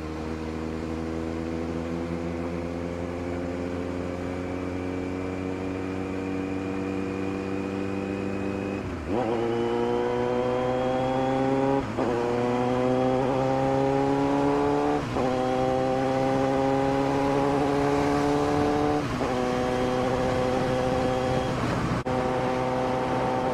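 Kawasaki Z900's inline-four engine accelerating under the rider: a long pull rising slowly in pitch, then quick upshifts about nine, twelve and fifteen seconds in, each followed by a climb, and a last drop near the end before it settles to a steady cruise. It gets louder after the first shift.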